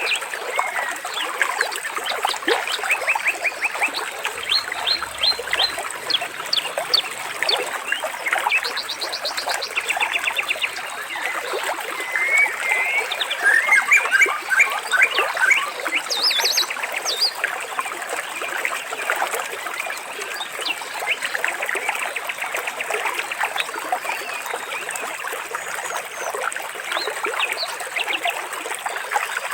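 Several birds chirping and trilling over steadily trickling water.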